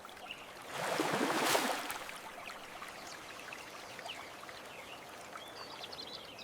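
Gentle flowing-water ambience, with a brief louder rush of water about a second in that then fades back to a soft steady trickle.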